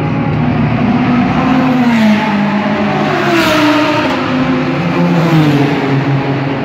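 Race car engines in a pit lane, several engine notes at once, shifting up and down in pitch. One car drives close past about three and a half seconds in, swelling loudest there.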